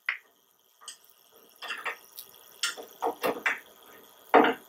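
Phillips screwdriver tightening screws with flat and star washers into a welder trolley's metal stabilizing tray: a scatter of small irregular clicks and scrapes, with one louder click near the end.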